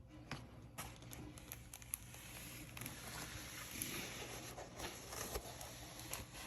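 Light rustling and crinkling with scattered small clicks: a diamond painting canvas being handled. The rustling grows busier about halfway through.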